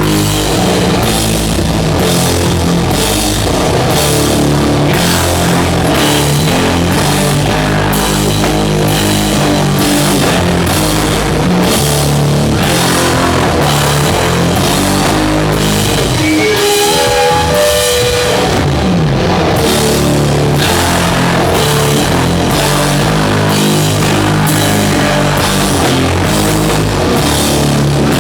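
Live heavy metal band playing loud: distorted guitars and bass over a steady, heavy drum beat. About two-thirds of the way through, the bass and drums drop out briefly under a bending lead guitar line before the full band comes back in.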